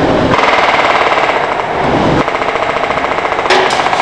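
Pneumatic rivet gun hammering a rivet into aluminium sheet in a rapid run of blows, starting about a third of a second in and lasting about three seconds.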